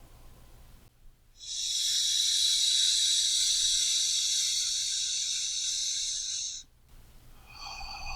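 Slow deep breathing, with one long, loud, hissing breath lasting about five seconds and quieter breaths just before it and again near the end.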